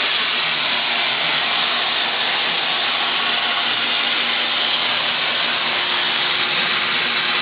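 Industrial upcut saw running steadily without cutting: an even, airy whirring hiss from its motor and spinning 18-inch blade, with a faint hum underneath.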